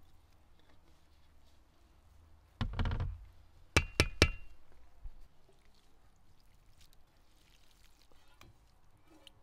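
Metal cookware handled on a wooden table: a rattling thud about two and a half seconds in, then three quick, sharp metallic knocks with a short ring, as the steel colander used to drain the rice is knocked and set down among the aluminium pans.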